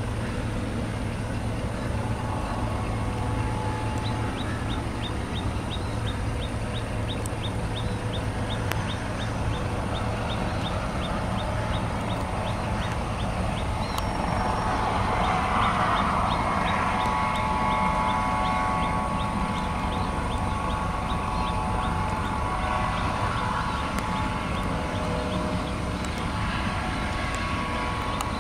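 Jet airliner engines running, a steady low rumble with a whine of several tones that swells about halfway through. A faint, even high ticking, about four a second, starts a few seconds in.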